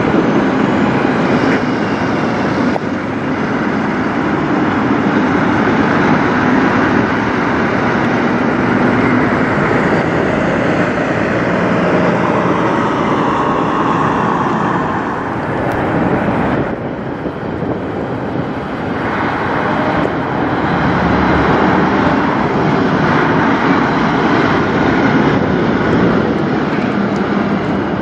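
Diesel truck engines running under load as semi trucks pull away: first a Peterbilt tractor hauling a multi-axle trailer, then a straight box truck, after a brief dip about two-thirds of the way through.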